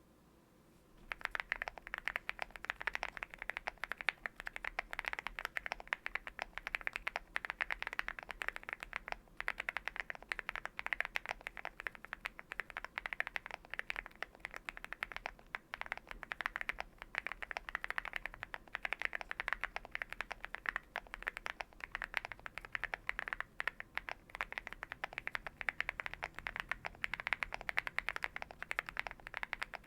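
Fast, continuous typing on a Leobog Hi75 mechanical keyboard with stock, unlubed Leobog Juggle V2 linear switches, tape-modded and foam-filled, starting about a second in: a dense stream of quick key clacks.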